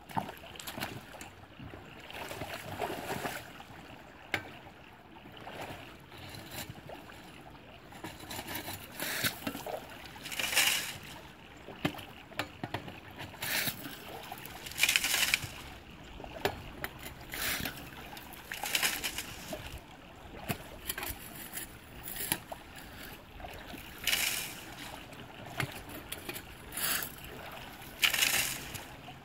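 Hand-operated yabbie pump working in a shallow creek, drawing up water and gravel from the creek bed, with irregular sloshing and splashing as each stroke is pumped and emptied.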